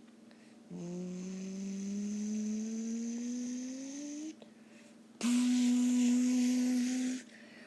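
A person's voice humming or straining, first in one long tone that slowly rises in pitch, then, after a short pause, in a louder steady held tone with a breathy hiss.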